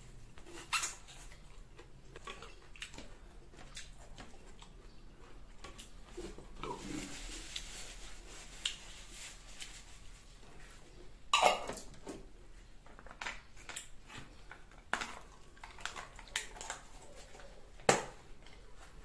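Eating and table-handling noises: mouth sounds from chewing green mango, and scattered clicks and knocks as things are moved on a wooden cutting board. A louder short sound that drops in pitch comes about eleven seconds in, and a sharp knock near the end.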